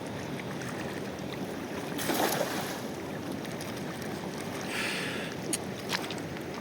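Steady rushing of water and wind outdoors, with scattered small clicks and a brief louder rush about two seconds in.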